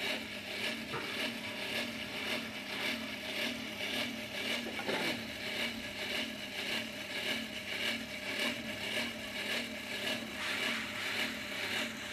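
Hand-cranked forge blower whirring steadily as it fans a charcoal fire that heats a copper pot for tinning. It pulses evenly, about twice a second with each turn of the crank, along with a scraping rub.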